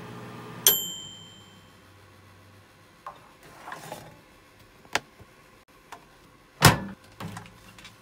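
Microwave oven's running hum cuts off and its timer bell rings once, a bright ding fading over about a second, marking the end of the heating cycle. Then the door is opened with a few latch clicks and shut with a loud thump.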